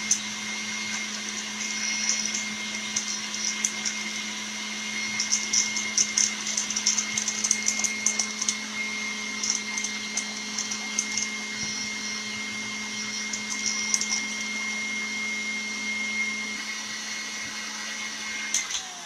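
Electric stand mixer running steadily as it whips egg whites, with the scratchy rasp of a hand-crank flour sifter coming and going in bursts over it. The mixer is switched off near the end.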